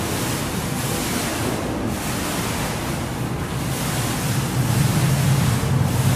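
Steady rushing hiss of heavy rain, with a low rumble that grows louder about four and a half seconds in.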